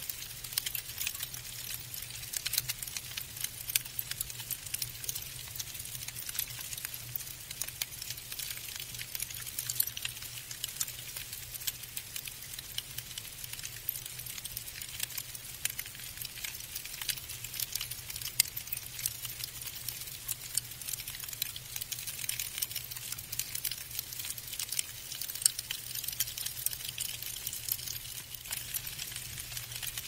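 Falling snow pattering: a dense, steady stream of fine, high ticks and crackle, over a faint steady low hum.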